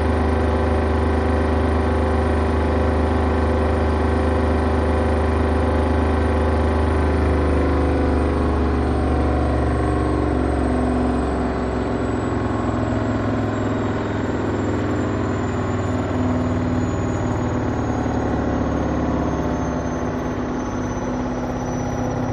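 Hoover Optima OPH716DF washing machine's drum slowing down from a 1600 rpm spin, the motor's high whine falling slowly in pitch over the drum's hum and rumble. The sound eases a little about halfway through.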